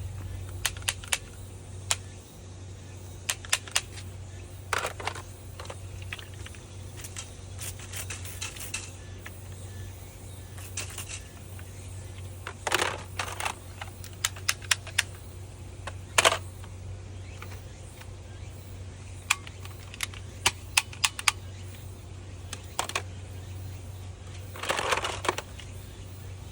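Toy blaster being worked and tested: scattered sharp plastic clicks, some in quick runs of several, with a few short whooshing bursts in between.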